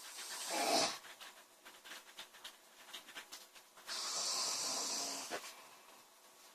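A girl snoring in her sleep. A snore swells and stops short about a second in, then comes a long breathy exhale from about four seconds in, with faint clicks between.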